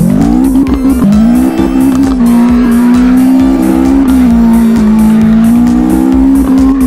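Simulated race-car engine sound revving up twice, near the start and about a second in, then holding a steady drone, with music behind it.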